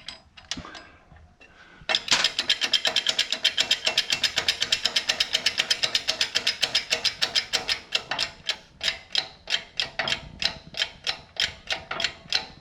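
Socket ratchet clicking quickly as it spins the axle nut off the hub, about seven or eight clicks a second, slowing to about three or four a second in the second half.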